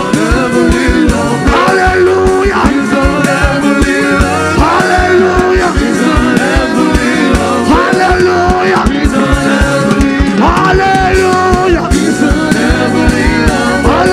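Loud band music with singing over a fast, steady drum beat.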